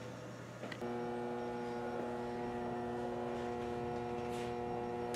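Steady machinery hum made of several held tones, cutting in abruptly about a second in over a lower steady background hum.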